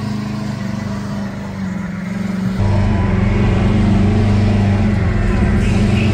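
Mega truck engine running at a steady pitch, growing louder about two and a half seconds in.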